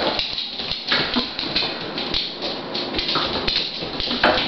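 A Doberman's paws and claws hitting a hard floor as she runs about at full speed: a rapid, irregular run of clicks and thumps.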